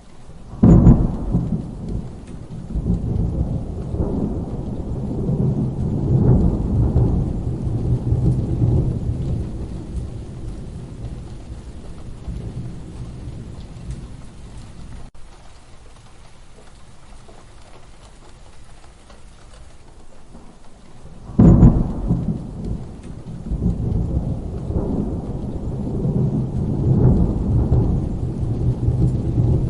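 Thunderstorm: steady rain with two thunderclaps, one about a second in and one about two-thirds of the way through, each a sharp crack followed by several seconds of low rolling rumble that slowly fades.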